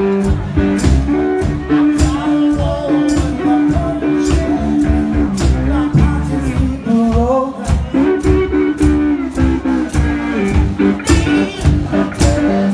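Live blues-rock band playing: a steady drum beat under held, sustained notes, with a rising slide in pitch about seven seconds in.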